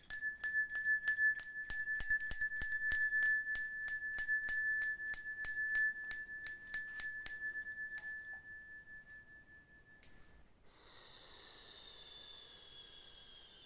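A small bell-like object is struck rapidly, about four strikes a second, and rings with a steady clear tone; the strikes stop about seven and a half seconds in and the ring fades away. About ten and a half seconds in, a quieter, breathy high tone starts and slides slowly downward.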